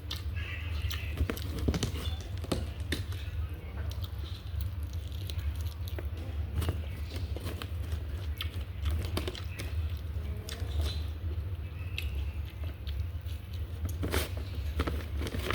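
Close eating sounds: a person chewing and biting food, with scattered small clicks and smacks, over a steady low hum.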